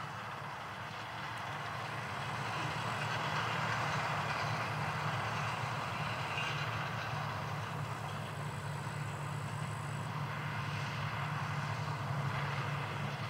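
Steady drone of a distant vehicle engine running, slightly louder from about two seconds in.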